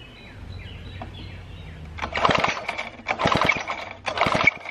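1950s David Bradley chainsaw cranked over by its pull cord: three quick pulls about a second apart, each a short rattling whir of the starter and engine turning over, without the engine catching. The magneto is giving weak output and no spark.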